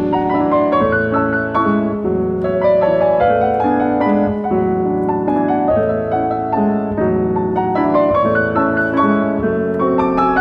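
Piano playing a flowing passage of quick notes over held low tones.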